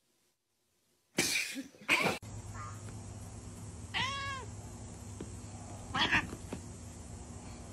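Domestic cats vocalising: a single short meow that rises and falls about four seconds in, then a brief harsher cry near six seconds. Earlier, two short loud noisy sounds follow a second of near silence.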